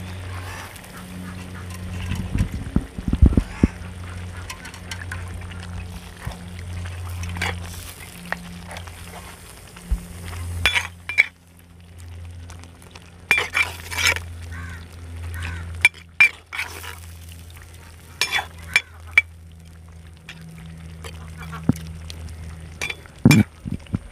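A steel spoon stirring fish curry in a clay pot, scraping and clinking against the pot several times, over a steady low hum.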